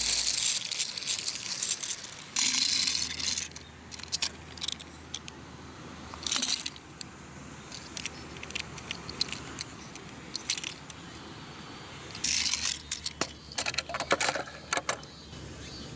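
Small die-cast toy truck being handled: its wheels rattling and scraping as it is rolled, then bursts of clicks and clatter as the metal toy knocks against a plastic carrier case near the end.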